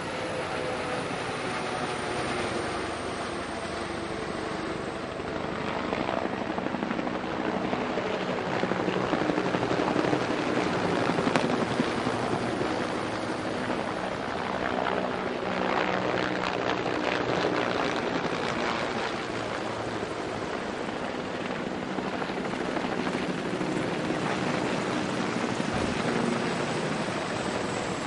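A mass formation of military helicopters of several types flying past overhead: steady rotor and turbine noise. It swells louder twice, through the middle, as nearer groups pass.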